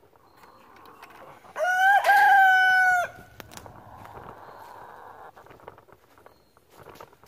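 A rooster crowing once, loudly, a cock-a-doodle-doo of about a second and a half with a brief break near its start.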